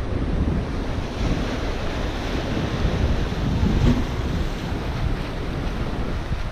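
Ocean surf breaking and washing around the rocks of a jetty, with strong wind buffeting the microphone, as a steady, unbroken rush with a heavy low rumble.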